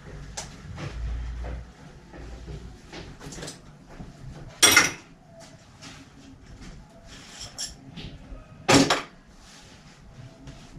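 Tools and parts being handled at a workshop bench: small clicks and knocks, with two louder, sharp clatters a little under five seconds in and near the end.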